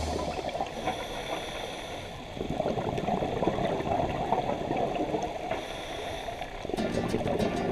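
Underwater bubbling and gurgling from a scuba diver's exhaled bubbles. It swells about two seconds in and again near the end.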